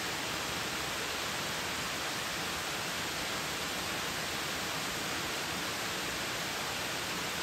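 Steady rushing of a waterfall: an even, unbroken hiss with no rise or fall.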